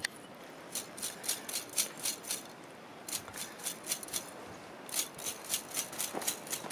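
Wire whisk raked quickly through a long-haired dog's snow-caked fur, scraping and knocking at balls of packed snow. The strokes come about five a second, in three runs with short pauses between.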